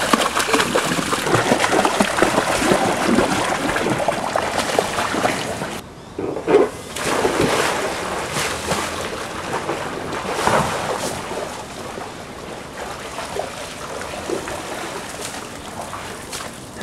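Water splashing and sloshing in a large backyard paddling pool as people thrash and wade through it. A loud splash comes about six and a half seconds in, then the sloshing slowly settles.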